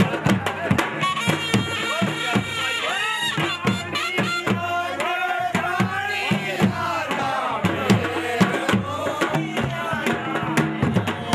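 Live folk wedding music: rope-tensioned barrel drums (dhol) beating a fast, steady rhythm, with a high wavering melody line over them.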